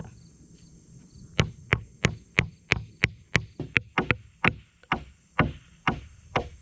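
A hammer driving a form stake into the ground, swung by a child: a steady run of sharp blows at about three a second, starting about a second and a half in.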